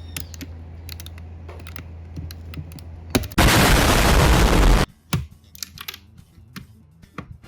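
Light plastic clicks and ticks of keyboard switches being gripped and pried out of a keyboard with a switch puller. A loud rush of noise cuts in about three and a half seconds in and lasts about a second and a half, then the scattered clicks return.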